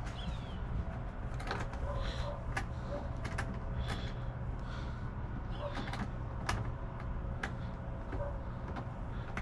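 Scattered sharp clicks and small metal ticks from a hand tool loosening the 7mm screws on the back of a steering wheel, irregular at about one or two a second, over a steady low hum.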